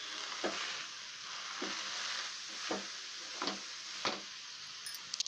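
Wooden spatula stirring and turning cooked rice in a metal kadai, over a steady frying sizzle, with about five short knocks and scrapes of the spatula against the pan.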